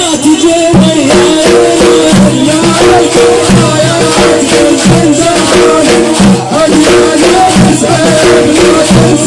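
Middle Eastern instrumental music: a melody line over quick, steady, shaker-like percussion.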